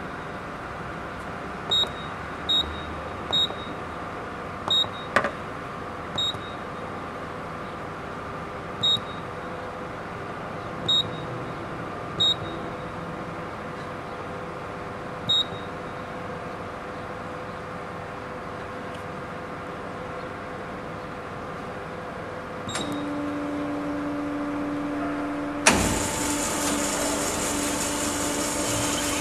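Short high keypad beeps from a CNC band saw's control panel, about ten over the first fifteen seconds, over a steady machine hum. Near the end a low steady hum comes in, and a few seconds later the band saw starts and runs noisily as its automatic cutting cycle begins.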